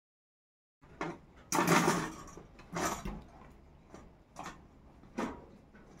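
Dead silence for under a second, then a run of irregular knocks and clattering noises, the loudest and longest about a second and a half in.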